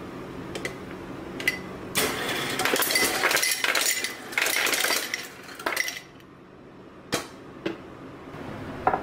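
Refrigerator door ice dispenser dropping ice cubes into a glass mug. The cubes clatter against the glass for about four seconds, with a few single clinks before and after.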